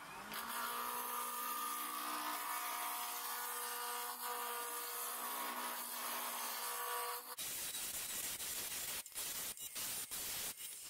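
Wood lathe spinning a square wooden blank while a hand-held gouge cuts it round: a steady humming tone over the hiss of shavings being torn off. About seven seconds in the hum stops abruptly, and the cutting goes on as an uneven hiss with brief breaks.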